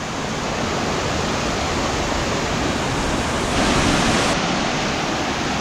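Steady rushing of a mountain stream and waterfall, briefly louder a little past halfway.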